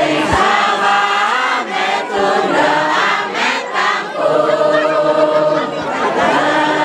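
A group of voices chanting a slow ritual song together in long held notes, phrase after phrase: the cowongan rain-calling chant.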